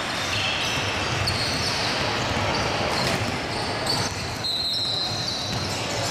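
Sounds of a youth basketball game on a wooden gym floor: the ball being dribbled, and short high sneaker squeaks as players cut and stop.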